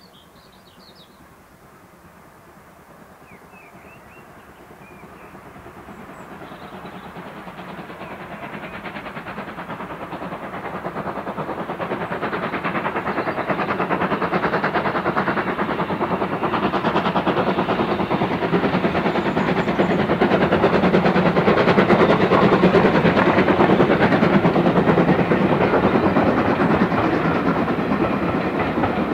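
LMS Ivatt 2MT tank steam locomotive hauling coaches, approaching and passing. Its exhaust and the wheels clicking over the rail joints grow steadily louder for about twenty seconds, then stay loud near the end as the coaches go by.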